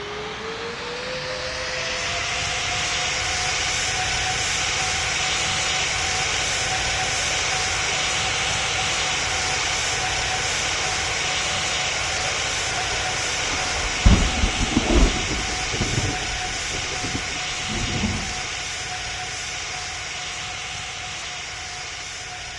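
Jet aircraft engines spooling up, their whine rising in pitch over the first couple of seconds, then holding a steady high whine over a broad roar that slowly fades near the end. A cluster of loud low thumps comes about two-thirds of the way through.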